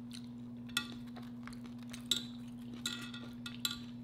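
Loaded nachos being picked off a metal serving tray: four sharp clinks with a brief metallic ring as fingers knock against the tray and chips. A steady low hum runs underneath.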